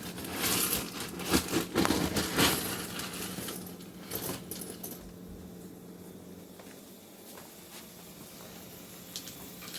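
Kitchen clatter: a run of hard clinks and knocks of kitchenware for the first few seconds, then quieter, with a low steady hum and a few light ticks near the end.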